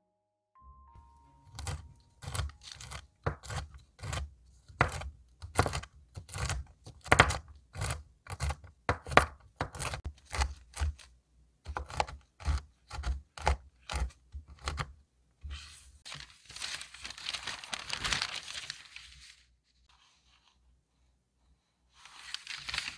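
Chef's knife chopping almonds and walnuts on a parchment-lined wooden cutting board, sharp chops at about two a second for some thirteen seconds. Then a few seconds of continuous scraping and rustling, and near the end a short rustle of parchment paper being handled.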